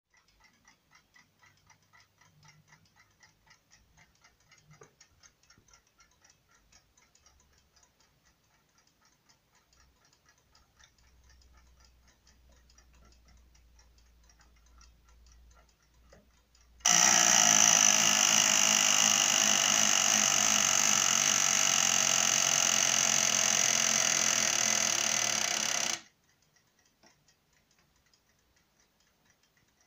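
Antique French mechanical alarm clocks ticking quietly, then an alarm bell ringing loud and continuous for about nine seconds past the middle, cutting off suddenly, after which the quiet ticking goes on.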